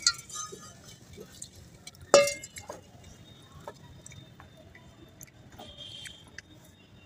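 Hands working dry split lentils in a terracotta bowl, with small clicks and grainy rustles, and a single ringing clink about two seconds in.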